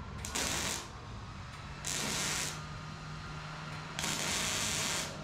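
Welder laying three short tack welds on the steel roof-rack mount: three crackling hisses, each about half a second long, near the start, about two seconds in and about four seconds in, with a low steady hum between them.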